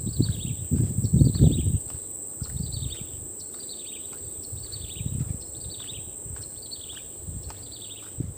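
Steady high-pitched drone of insects such as cicadas or crickets, with a short falling call repeating about once a second. Low muffled thumps come and go underneath, loudest about a second in.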